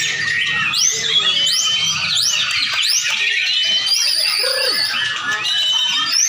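Several white-rumped shamas singing at once, a dense overlap of quick rising whistles and clear held notes. A high warbling trill comes in about four seconds in.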